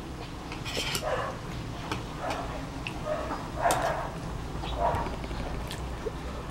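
Spoon and fork clicking and scraping against a plate of food, over a steady low hum. Four short, louder sounds come about a second apart, the loudest a little past the middle.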